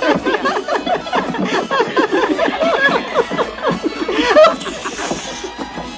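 A man's voice laughing and calling out in a string of quick chuckles, loudest a little over four seconds in, over background music.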